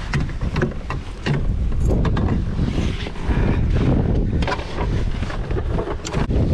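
Strong wind buffeting the microphone in a heavy, steady rumble, with frequent short slaps of choppy water against the kayak's hull.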